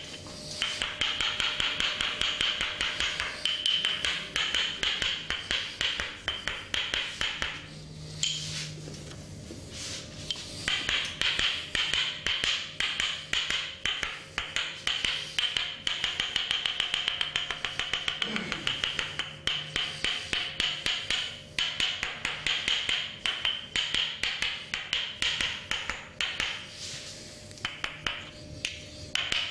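Rapid, rhythmic percussive tapping of hands on the body during a barber's massage, in long runs of quick taps with a pause of a few seconds.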